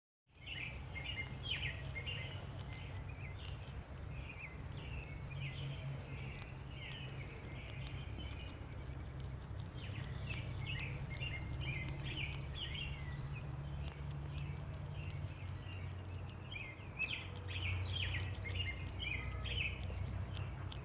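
Small birds chirping in quick, twittering runs that come and go, over a steady low rumble.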